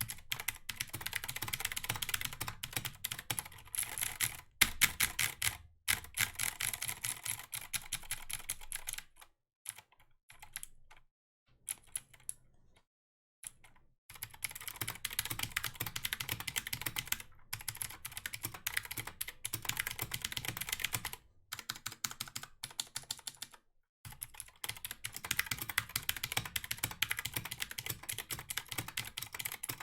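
Fast typing on a computer keyboard: dense runs of key clicks, with a break of a few seconds near the middle and a few brief pauses.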